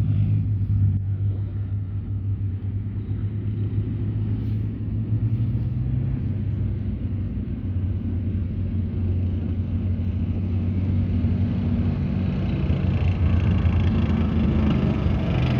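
Leopard 2 tank's V12 diesel engine running as the tank drives, a steady low rumble that grows louder over the last few seconds.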